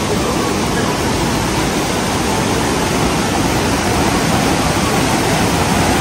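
Swollen river rushing through rapids over rocks: a steady, even wash of white water, the river running high with the dam opened after rain.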